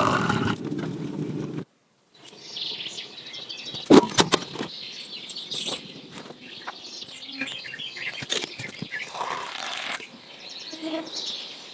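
Woodland birds chirping, with a few sharp knocks about four seconds in that are the loudest sound. Before that, a steady noise cuts off abruptly about a second and a half in.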